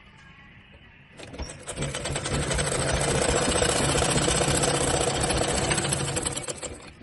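Upholstery sewing machine running a long seam at speed, with a rapid, even stitching rhythm over a steady motor hum. It starts about a second in, builds up over a couple of seconds, runs steadily, and stops near the end.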